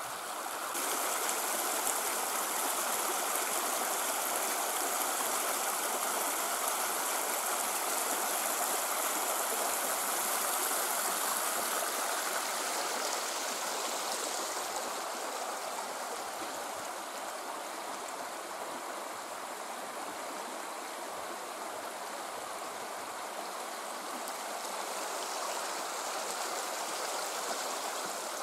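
Steady sound of flowing water from the Große Ohe, a forest river. It swells about a second in, then eases a little after the first dozen seconds.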